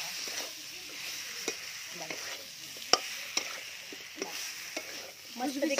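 Chicken pieces frying dry in masala, no water yet added, sizzling in a large metal kadhai while a flat metal spatula stirs them. The spatula scrapes and clinks against the pan now and then, with one sharper clank about halfway through.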